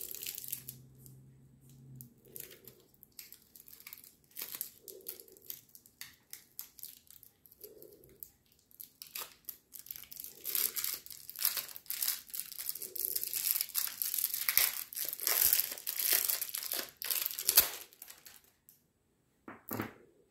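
Clear plastic lollipop wrapper crinkling and rustling as it is worked off a hard-candy lollipop by hand. It comes in scattered crackles at first, then a dense, louder stretch of crinkling through the second half, and stops shortly before a couple of light clicks near the end.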